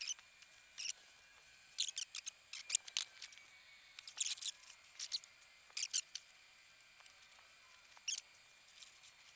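Faint, irregular clicking and scraping from hands working braided hoses and their metal fittings under a car, in short bursts about a second apart.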